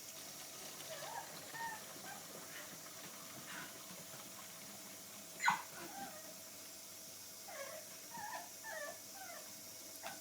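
Dog whining in short, high whimpers, in bursts near the start and again near the end, with one louder, short, sharp sound about halfway through.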